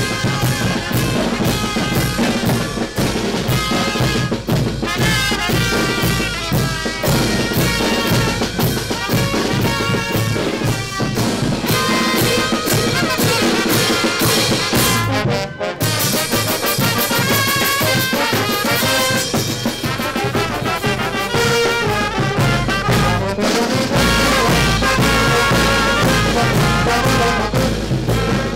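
Brass band music: trumpets and trombones playing over drums, with a short break about halfway through.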